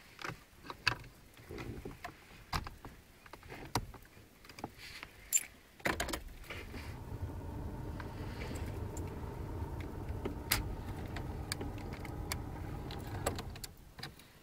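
Sharp plastic clicks and knocks as a small FM-transmitter MP3 player is handled and pushed into a car's cigarette-lighter socket. From about six seconds in, a steady low hum comes in, and it cuts off shortly before the end.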